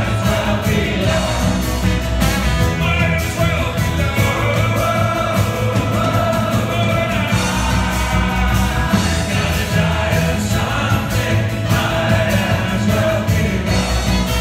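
A live band plays a song with several voices singing and drums keeping a steady beat. It is heard from among the audience in a large hall.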